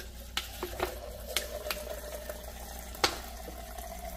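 White vinegar pouring in a thin stream from a plastic bottle into a plastic measuring jug: a steady trickle with a faint held tone, and a few light clicks.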